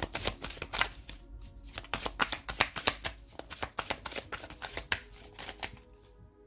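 A deck of oracle cards shuffled by hand: a quick run of card flicks and snaps that thins out and fades near the end.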